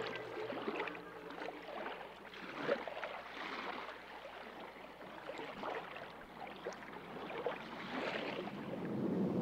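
Sea water sloshing and splashing in uneven surges as it washes along a boat's hull, with a louder splash about three seconds in.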